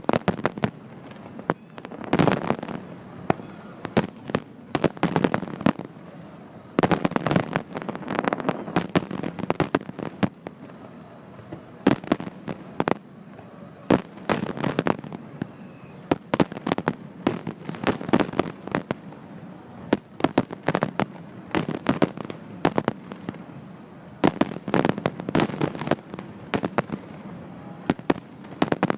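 Fireworks going off in rapid, irregular volleys of sharp bangs and crackles, many in quick succession, coming in clusters every second or two.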